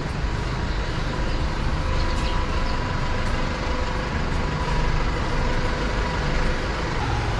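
City street ambience: a steady low rumble of road traffic, with a faint steady hum over it.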